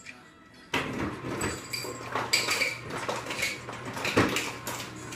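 Refrigerator door ice dispenser running: ice cubes clatter down the chute into a container over a steady low motor hum, starting suddenly about a second in.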